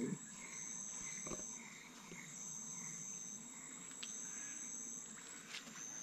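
Insect calling in high-pitched trills about a second long, repeating with short gaps between them, over faint background hiss.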